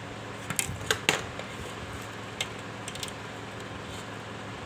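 A few sharp clicks and knocks of a plastic steamer tray and its handle being handled and fitted at the pivot, bunched about a second in with one more a little later, over a steady low hum.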